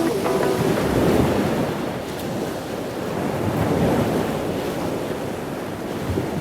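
Surf: waves washing in on a shore, a steady rush that swells twice and eases between.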